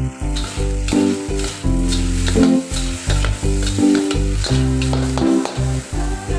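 Noodles sizzling in a hot steel wok while a metal spatula and ladle scrape and toss them against the pan. Background music plays underneath.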